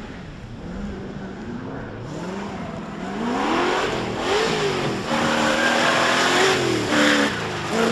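4x4 off-road rally car engine revving hard as it approaches. The pitch climbs and drops again and again with the gear changes, and it grows much louder from about three seconds in.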